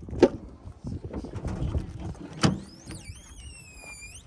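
Pickup truck's rear hatch and tailgate being opened: two knocks of the latches and metal, then a high squeak that dips and rises again for just over a second as the tailgate swings down.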